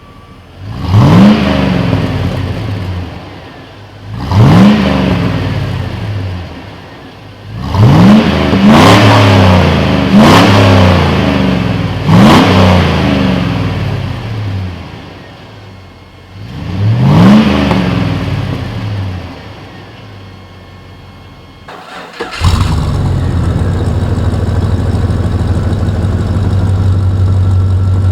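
1999 Chevy Silverado's 5.3-litre V8 exhaust through a Cherry Bomb Salute straight-through muffler, revved in seven quick blips that each fall slowly back toward idle, two of them close together about eight seconds in. About 22 seconds in it changes abruptly to a loud, steady exhaust drone.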